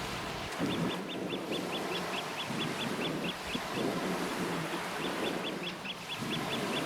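Eurasian oystercatchers piping: rapid runs of short, sharp, high calls, about five or six a second, starting about a second in and again past the middle, over a low rushing noise.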